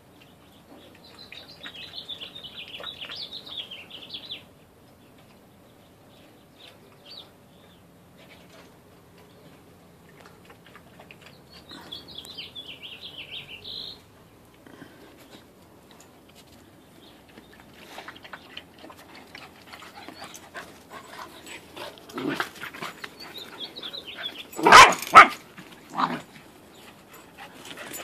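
Two puppies at play: high-pitched whining in two stretches of a few seconds each, then a few short, loud barks near the end.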